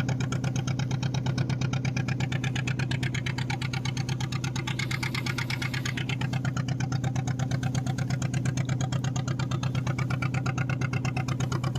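Fishing boat's engine running steadily, with a fast, even beat and a steady low hum.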